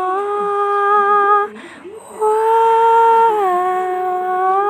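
Background music: a voice humming long, held notes that step smoothly up and down in pitch, with a short break about a second and a half in.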